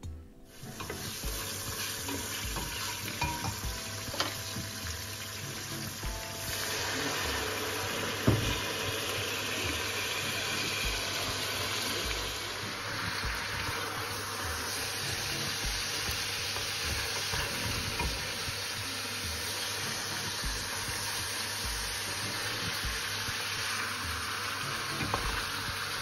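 Kassler, onions and spices sizzling as they brown in a stainless steel pot, stirred with a wooden spoon, with a few knocks of the spoon. The sizzling grows louder about six seconds in.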